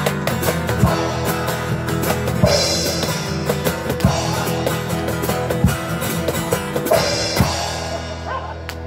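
Live Austropop band playing: acoustic guitar with drums and cymbals keeping a steady beat, with a cymbal wash twice.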